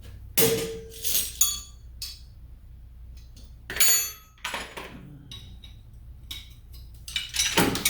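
Metal hand tools clinking and clattering as they are picked up and set down, a handful of separate clinks, some ringing briefly, with a busier clatter near the end.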